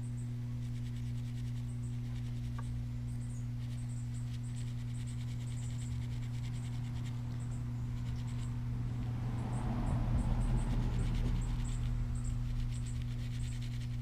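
Scratching and faint crackling of a battery being rubbed against tinder to throw sparks, growing louder about nine seconds in; the sparks are not enough to light the fire. A steady low hum runs underneath.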